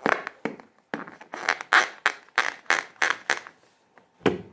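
Fingers rubbing and squeezing a latex balloon: a run of short rubbery scrapes, about three a second through the middle, with one more near the end.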